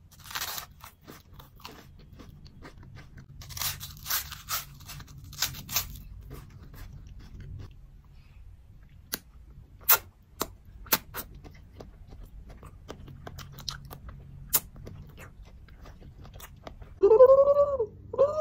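Crunching and chewing of bitten food, loudest a few seconds in, followed by scattered sharp clicks. Near the end a loud squeaky pitched sound rises and falls twice.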